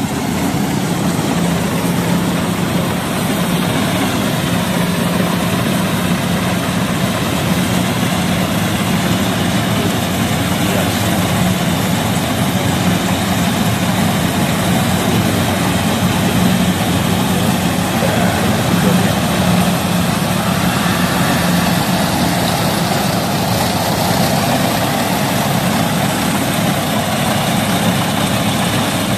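Gatra rice combine harvester running steadily as it harvests rice: an even, unbroken engine drone with a constant low hum.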